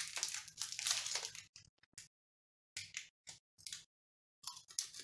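Plastic snack wrapper crinkling for about a second and a half, then a few short, crisp crunches as a cream-filled wafer stick is bitten and chewed.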